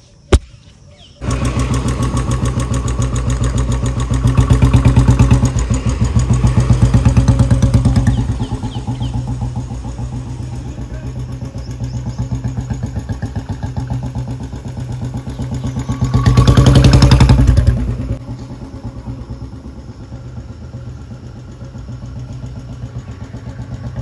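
Royal Enfield Bullet motorcycle's single-cylinder engine running with a fast, even exhaust pulse as it is ridden. It swells louder twice, loudest at about 16 to 18 seconds. A single sharp click comes just before the engine sound cuts in about a second in.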